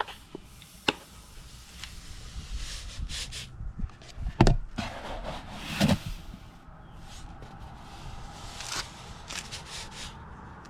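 Scraping and rubbing handling noises with several sharp knocks, the loudest about four and a half and six seconds in.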